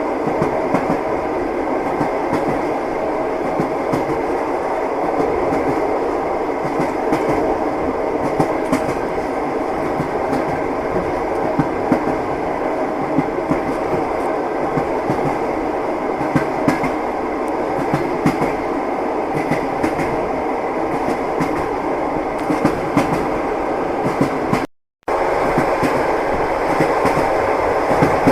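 Train wheels clattering over the rails: a steady rolling rumble with frequent sharp clacks. About 25 s in the sound cuts out completely for half a second, then resumes.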